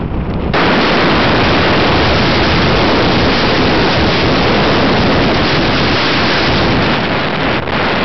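Wind rushing over the microphone mixed with tyre and road noise from a car driving on an unpaved dirt road. The noise steps up sharply about half a second in, stays loud, and dips briefly near the end.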